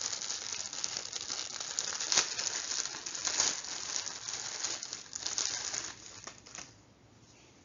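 Clear plastic bag crinkling as hands work a cloth face mask out of it. The crinkling thins to a few scattered crackles about six seconds in and stops near the end.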